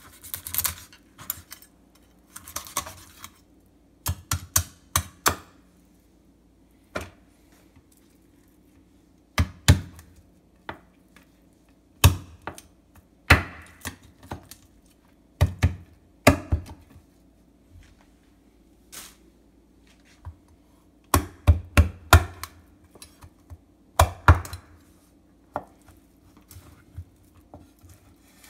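Kitchen knife cutting and chopping through a morwong's body and rib bones on a wooden cutting board: irregular sharp knocks of the blade hitting the board, some in quick runs of three or four, with softer scraping and cutting between them.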